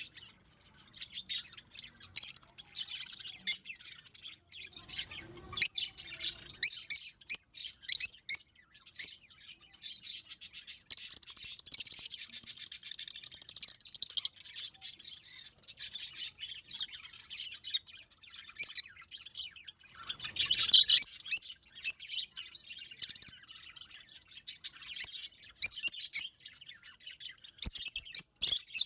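Rosy-faced lovebirds chirping: a steady run of short, sharp, high-pitched chirps, with a stretch of dense, unbroken chattering from about ten to fourteen seconds in and another loud burst around twenty seconds in.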